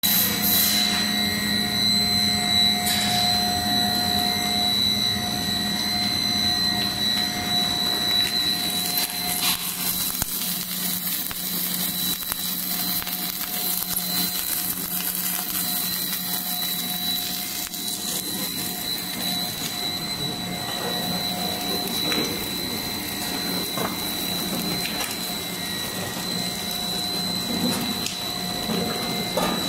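Twin-screw corn puff snack extruder running in production: a steady machine drone with a high, constant whine over a low hum, and a few light knocks.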